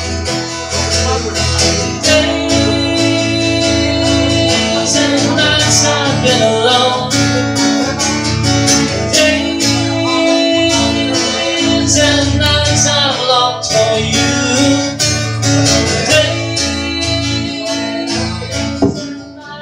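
Acoustic guitar strummed steadily in a live solo performance, with wordless singing heard at times. The playing dips briefly near the end.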